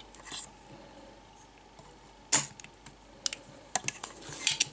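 Spring-loaded desoldering pump (solder sucker) firing with one sharp snap about two and a half seconds in, sucking molten solder out of a through-hole on a circuit board. Several lighter clicks and taps follow.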